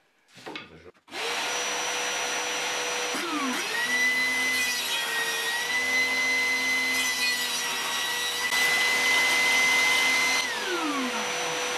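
A shop vacuum switches on about a second in and runs steadily. About two seconds later a homemade table saw built from a Status SP190PL 1400 W handheld circular saw spins up with a rising whine and crosscuts a wooden board square. Near the end the saw winds down with a falling whine while the vacuum keeps running.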